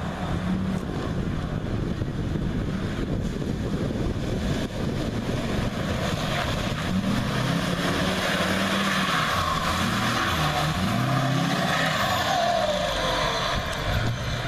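Lifted Ford Super Duty pickup driving through mud, its engine running loud and revving up and down several times as it turns.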